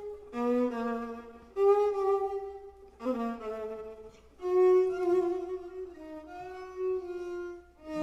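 Jazz violin playing alone, with no band behind it: sustained bowed notes in short phrases, separated by brief pauses.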